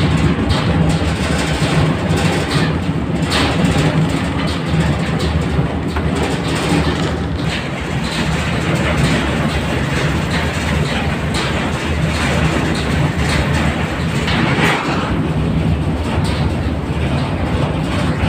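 Train running along the track, a steady rumble with wheels clattering irregularly over the rails, heard from the open rear end of the train.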